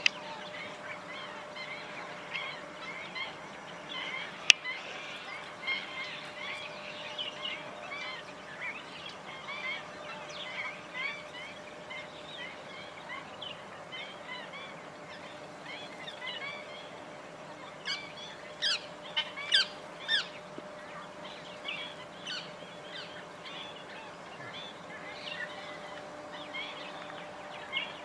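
A flock of black-winged stilts calling: a busy chatter of many short, sharp calls, with a louder burst of several calls about 18 to 20 seconds in. A single sharp click about four and a half seconds in, and a faint steady hum underneath.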